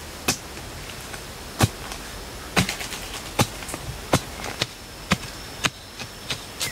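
Short-handled hoe chopping into the soil of the forest floor: a string of sharp strikes, a bit under one a second.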